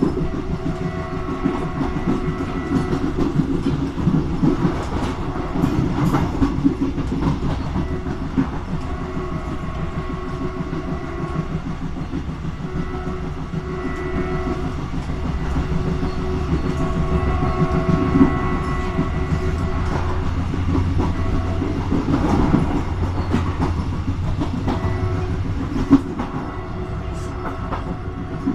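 Diesel-hauled passenger train running on the line: a steady rumble and engine drone with the wheels clicking over the rail joints, and a few sharp knocks, one loud near the end.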